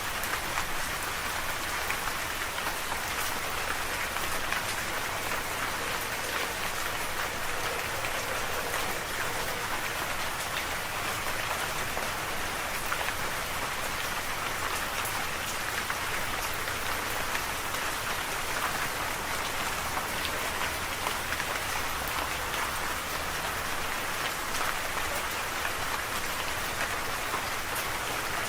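Steady rain falling, a continuous even hiss of many fine drop patters with no thunder.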